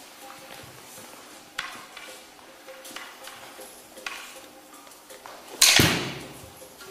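Lightsaber duel sound effects: swings and four clashes over a faint steady hum, the last clash near the end by far the loudest.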